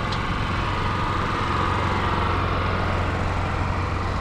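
A steady, unbroken engine-like hum with a constant low drone.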